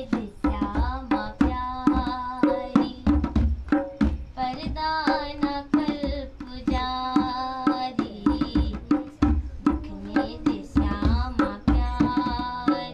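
A girl singing a devotional bhajan in long held phrases, keeping time with her own hand strokes on a dholak, a two-headed barrel drum, several strokes a second.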